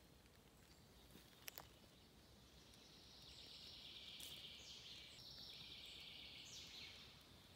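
Faint early-morning woodland ambience. A high, buzzing trill from a small wild creature starts about two and a half seconds in and runs about five seconds, dropping in pitch in a few steps. Two soft clicks come about a second and a half in.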